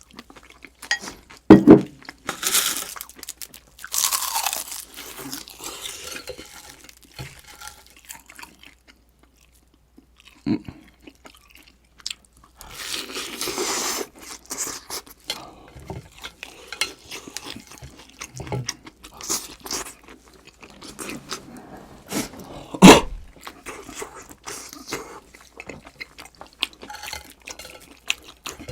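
A person eating close to the microphone: wet chewing and crunching of food, with two sharp knocks, about one and a half seconds in and again near the end.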